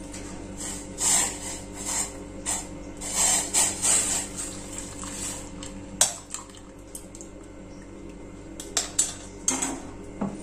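Tea-leaf water poured into a metal pressure cooker of soaked chickpeas, splashing in uneven gushes for the first several seconds. A sharp clink about six seconds in, then a few lighter knocks near the end.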